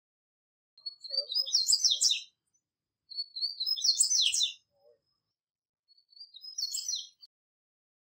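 Wild male double-collared seedeater (coleiro, papa-capim) singing its natural song. It gives three short phrases of rapid, high twittering notes, each lasting about a second to a second and a half, with pauses between them.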